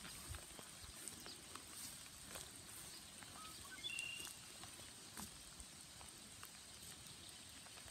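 Faint rural outdoor ambience of light rain: scattered soft ticks of drops, with one brief high chirp about four seconds in.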